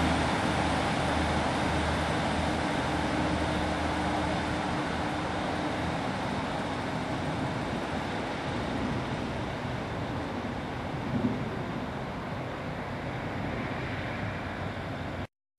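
Class 156 Sprinter diesel multiple unit pulling away under power, its underfloor Cummins diesel engines running with a steady engine note. The sound fades slowly as the train moves off, with one short louder sound about eleven seconds in, then cuts off suddenly.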